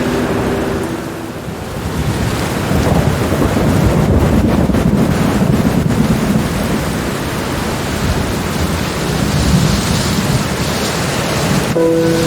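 Heavy rain falling steadily, with a low rumble of thunder that swells from about two seconds in and rolls on for several seconds. Held musical notes sound briefly at the start and again near the end.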